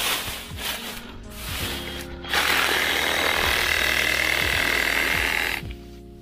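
Dry bamboo leaves rustling as they are pushed aside, then a small cordless electric saw runs steadily for about three seconds, cutting through a young bamboo shoot at its base, and stops suddenly.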